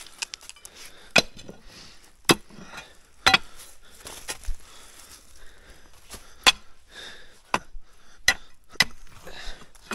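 About eight sharp knocks at irregular intervals, each a tool striking something hard.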